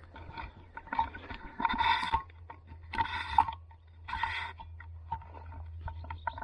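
Footsteps crunching on dry garden ground, a few slow steps about a second apart, over a steady low rumble of wind or handling noise.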